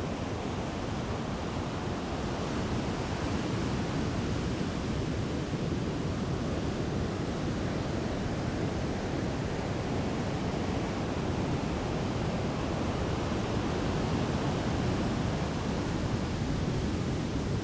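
Heavy ocean surf breaking, a steady rushing wash of waves with no single crash standing out.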